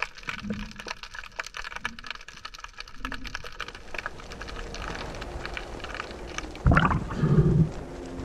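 Underwater ambience with dense crackling clicks, then a loud, low gurgling burst lasting about a second near the end.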